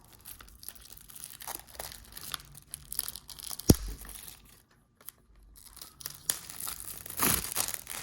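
Plastic shrink wrap being torn and crinkled off a Blu-ray case in irregular crackling spurts. There is one sharp click a little past the middle and a denser burst of crinkling near the end.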